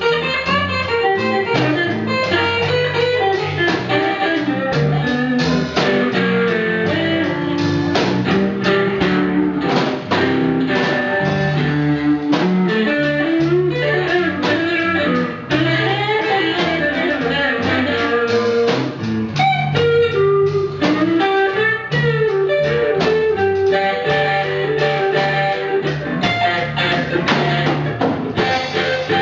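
Background music: a blues-style guitar tune with bass and a steady beat.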